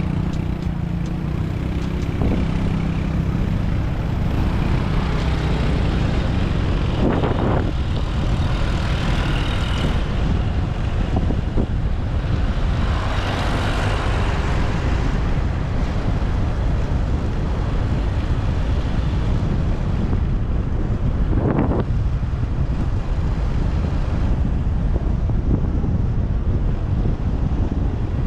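A motorcycle riding through city traffic: a steady rumble of engine and road noise, with wind buffeting the microphone. Other traffic swells past, loudest about halfway through.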